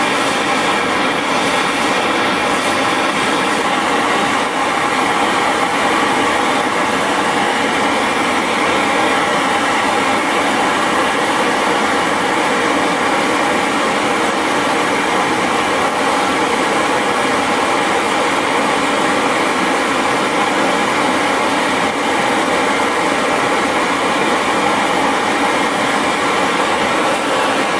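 LPG brazing torch burning steadily at full flame, heating a small steel tool blank to braze on a carbide tip with copper wire as the filler.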